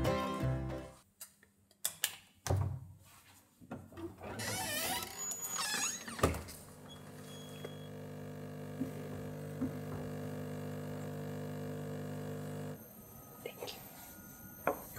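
Background music ends about a second in, followed by a few knocks and then a steady mechanical hum that lasts about six seconds and cuts off suddenly near the end.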